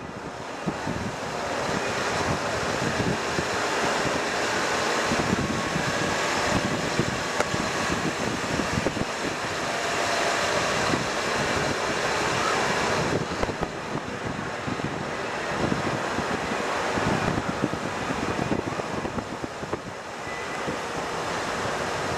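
Wind buffeting the microphone of a camera riding in a vehicle along a road: a steady rush with a choppy, gusty rumble underneath.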